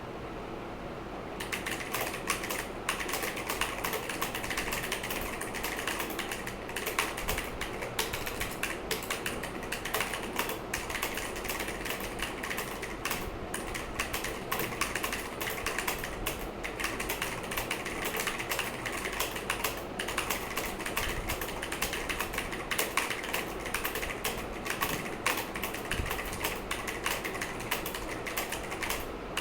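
Typing on a Cosmic Byte Black Eye mechanical keyboard with clicky blue switches: a fast, continuous clatter of key clicks that starts about a second and a half in.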